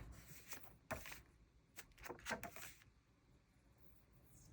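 Faint handling of paper stickers on a journal page: a few light ticks and rustles in the first three seconds, then near silence.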